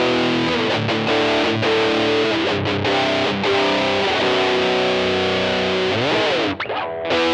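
Electric guitar played through a Zoom G1Xn multi-effects pedal on a distorted patch: held lead notes, with a slide in pitch about six seconds in and a brief dip in loudness just after.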